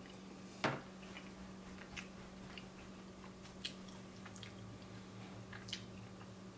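Faint eating sounds: a fork clicking against a ceramic bowl and chewing, a few separate clicks with the loudest about a second in. A steady low hum runs underneath.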